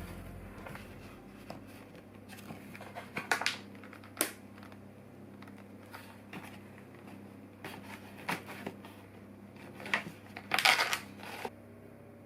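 Scattered rustling and clicking handling noises: a few sharp clicks and knocks, then a louder cluster of rustles near the end.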